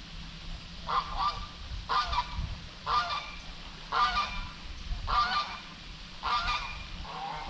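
A bird calling about seven times, roughly once a second, with the last call weaker, over a steady low background rumble.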